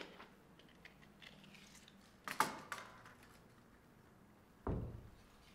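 Tape measure being handled and its metal tape pulled out: a few sharp clicks and rattles a little past two seconds in, then a dull thump near the end.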